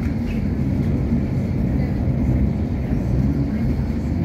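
Hong Kong Light Rail Phase 5 train running between stops, heard from inside the car: a steady low rumble of wheels on rail and running gear.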